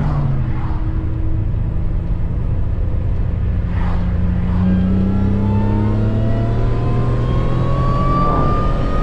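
Supercharged Acura accelerating hard through third gear, heard from inside the cabin. The engine note climbs, and a supercharger whine rises steadily in pitch over the second half.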